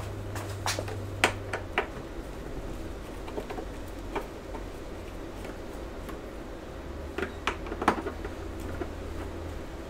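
Scattered light clicks and taps of small parts and tools being handled while a computer is taken apart. They come in a cluster in the first two seconds and again around seven to eight seconds, over a low steady hum.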